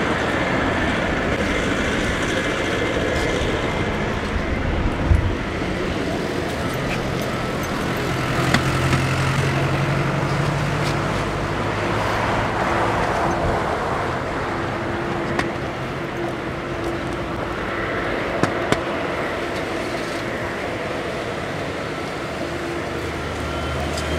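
Boeing 747-200 freighter's four turbofan engines running at low power as it taxis onto the runway and lines up for takeoff: a steady jet rumble and hiss with a low hum that swells a little midway.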